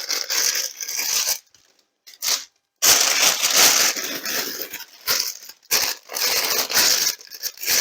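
Plastic bags of jigsaw puzzle pieces crinkling loudly as they are handled. The crinkling stops for about a second and a half, apart from one brief rustle, then starts again.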